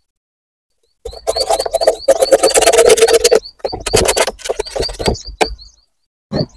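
A long black plastic water pipe being handled close to a clip-on microphone: about two seconds of scraping and rubbing, then a run of bumps and a couple of knocks.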